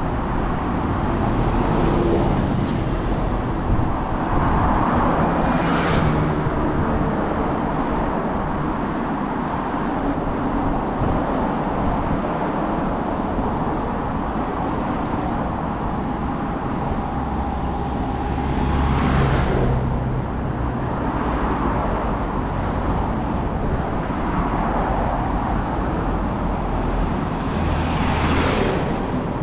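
Steady road traffic noise along a busy street, with vehicles passing close by three times, about 6, 19 and 28 seconds in. The later two passes have a heavy low rumble.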